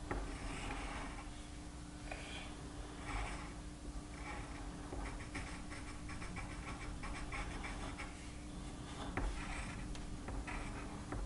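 Felt-tip marker and coloured pencil scratching on paper in short, irregular strokes as eyes are drawn, over a faint steady hum.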